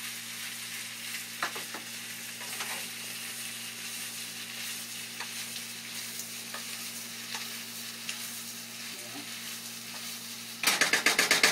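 A pasta stir-fry sizzling steadily in a pan on high heat, with occasional light clicks of the stirring utensil. Near the end comes a loud burst of rapid clattering.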